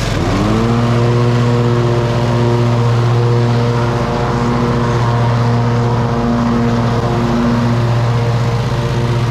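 Riding lawn mower engine running steadily while mowing, its note rising briefly at the start and then holding even.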